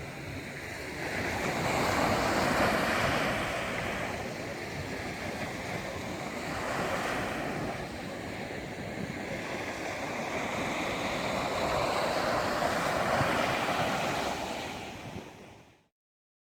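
Sea waves breaking and washing onto the shore, swelling and ebbing in slow surges about every five seconds, then fading out to silence near the end.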